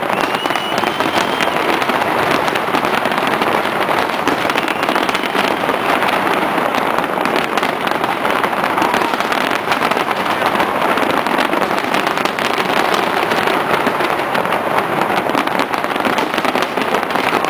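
Fireworks crackling densely and without a break: many small pops and crackles run into one steady rattle, with no single big boom standing out.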